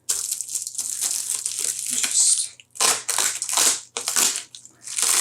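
Plastic wrap crinkling as it is pulled off a food container: a steady crackle for about two and a half seconds, then several separate crinkles.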